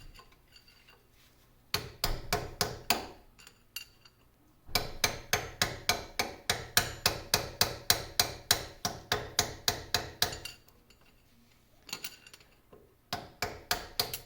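Hammer striking a soft metal punch held against a lathe headstock castle nut: sharp ringing metal taps in bursts, with a long steady run of about four taps a second in the middle, driving the nut loose.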